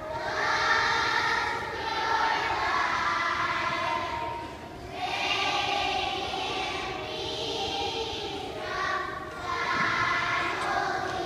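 Children's choir singing in long held phrases, with short breaks between phrases about five seconds apart.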